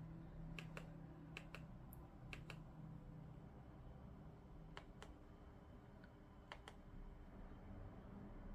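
Faint clicks from the buttons of a handheld remote working the TV box's menus, in five quick double clicks, press and release, a second or two apart. A faint low hum runs beneath.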